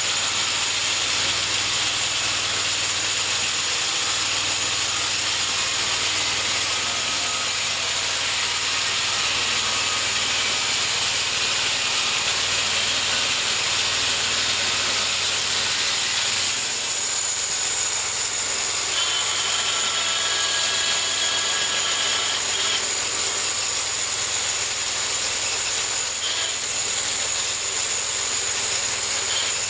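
Homemade bandsaw mill running steadily, its engine and blade sawing through a cherry log with a continuous hissing rush. The sound changes about seventeen seconds in, and a faint high whine follows for a few seconds.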